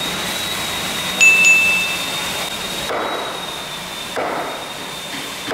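Wooden mallet striking the joints of a timber frame, three blows about a second and a half apart, driving the mortise-and-tenon joints home. A short bright chime rings about a second in and is the loudest sound.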